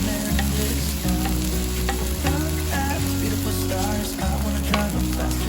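Food sizzling and crackling on a hot grill pan, under background pop music with a steady bass line.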